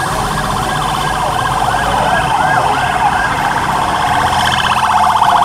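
Emergency vehicle siren sounding in quick rising-and-falling whoops, about three a second, then switching to a much faster warble about halfway through, over street noise.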